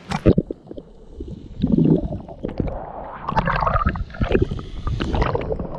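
Sea water splashing and sloshing around a waterproof action camera as it dips in and out of the surface beside a swimmer, with muffled underwater gurgling. There are a few sharp splashes at the start and a denser, busier spell of splashing from about halfway on.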